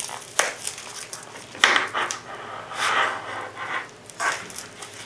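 Black nylon knife sheath being handled as its retaining strap is undone and a fixed-blade knife is drawn out: a run of short rustling and scraping noises, the sharpest and loudest about a second and a half in.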